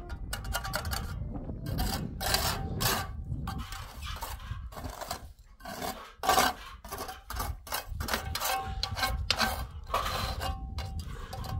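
Irregular rough scraping strokes, one or two a second, over a steady low rumble, the loudest about six seconds in.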